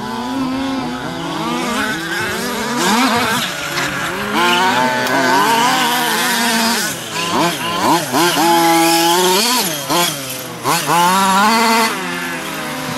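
Small two-stroke petrol engines of 1/5-scale Losi 5ive-type RC trucks, revving up and down repeatedly as the trucks are driven hard on a dirt track; more than one engine is heard at once.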